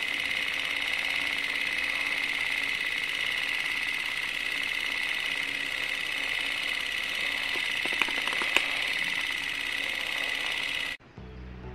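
Film projector running: a steady, fast mechanical clatter and whir, with two sharper clicks about eight seconds in. It cuts off suddenly near the end.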